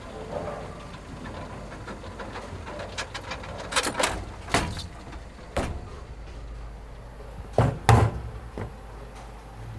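A handful of sharp knocks and thumps over a steady low hum, irregularly spaced, with the loudest pair near the end.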